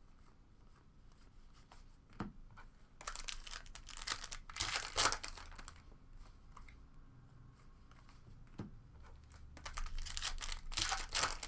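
Foil trading-card pack wrapper being torn open and crinkled by hand, in two crackly spells: one about three seconds in lasting a few seconds, another near the end, with a couple of single clicks between.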